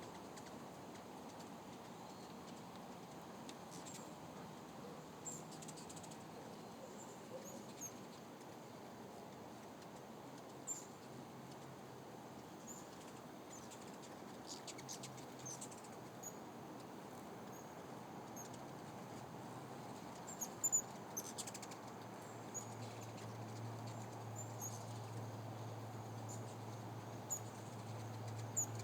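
Hummingbirds chirping around feeders: scattered short, high squeaky chirps, a few louder ones about twenty seconds in. A low steady hum comes in near the end.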